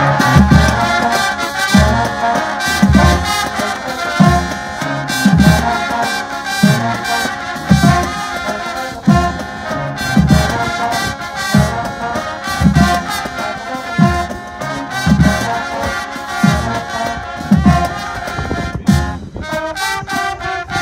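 Marching band playing: sousaphones and other brass holding loud chords over a steady bass-drum beat of about one hit a second.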